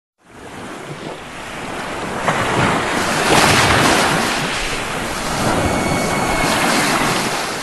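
Sea waves washing onto a sandy shore, a steady surf noise that swells and eases twice, with wind rumbling on the microphone.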